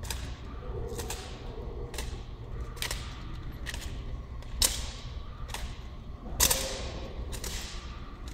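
Drill rifles being slapped and handled in a silent drill routine: sharp clacks about once a second, two much louder ones about halfway and two-thirds through, each echoing in a large hall, over a low steady hum.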